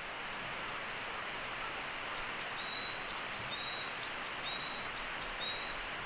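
Outdoor ambience with a steady hiss of background noise, and a small bird repeating a short high phrase of a few quick notes about once a second from about two seconds in.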